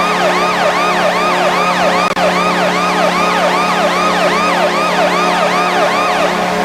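Hockey arena goal horn: a loud, steady low horn blast with a fast warbling siren sweeping up and down over it, about three sweeps a second. It cuts off near the end.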